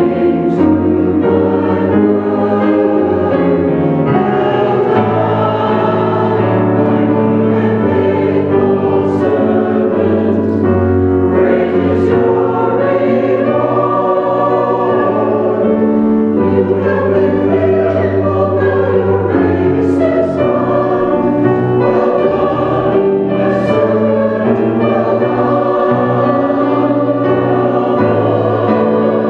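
Mixed church choir of men and women singing an anthem in parts, holding long notes and moving together from chord to chord.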